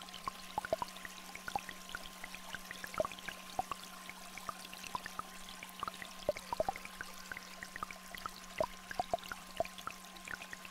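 Small stream trickling with many scattered water drops, under two steady electronic tones, one low and one higher.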